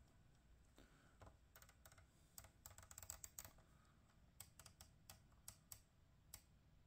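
Quiet, irregular small plastic clicks and taps, coming in two flurries, as fingers fit and set a gauge needle on its shaft in a Chevrolet Traverse instrument cluster.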